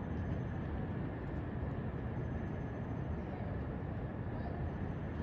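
Steady distant urban and rail-yard background noise: a low, even rumble with no single event standing out.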